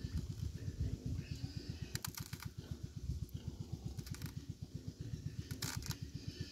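Apple snail egg clutch crackling as a thumb crushes it, in three short bursts of fine clicks about two, four and nearly six seconds in. Under it an engine runs steadily with a low, rapid throb.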